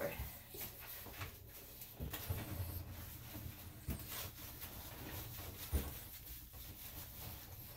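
Hands scrubbing shampoo lather into a small dog's wet fur: irregular soft rubbing and squishing, with a few short knocks, the loudest near the end.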